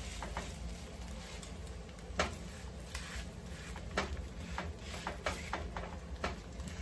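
Spatula tapping and scraping in a frying pan as a matzo brei mixture of egg-soaked matzah is pressed flat, with scattered short taps over a low steady hum.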